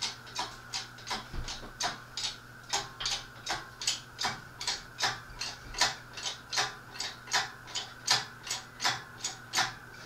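Hydraulic shop crane being pumped by its hand lever, each stroke giving a sharp mechanical click: a steady run of clicks, roughly two to three a second, as the load is raised.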